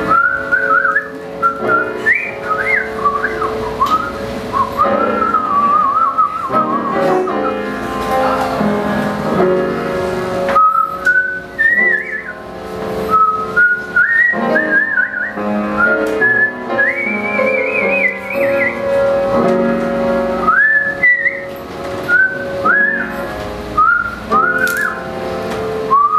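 A woman whistling a jazz melody into a microphone in short phrases, with pitch slides and vibrato, over a swing big band's soft accompaniment.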